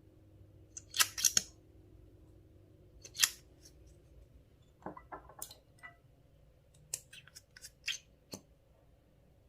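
A series of sharp clicks and snaps from makeup items and tools being handled: two loud snaps about a second in and another near three seconds, then a run of lighter clicks.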